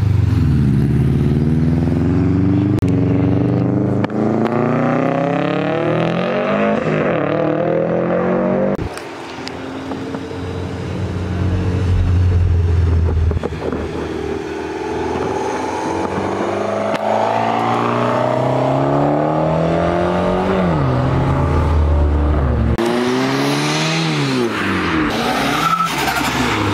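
Modified Japanese performance cars accelerating away one after another, each engine and exhaust revving up through the gears, the pitch climbing and then dropping at each shift. The sound changes abruptly twice as one car gives way to the next.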